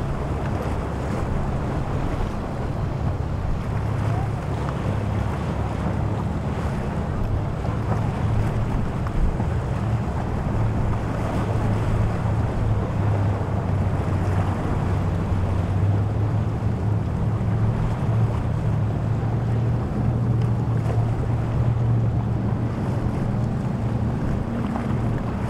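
Motorboat engines running with a steady low hum, under wind noise on the microphone and the wash of waves.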